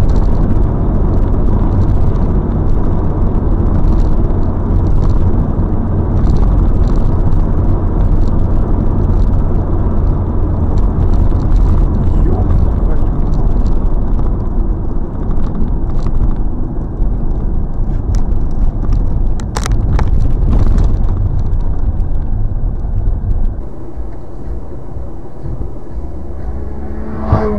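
Car driving: a loud, steady low rumble of engine and road noise, with a single sharp knock about twenty seconds in. The rumble eases a few seconds before the end.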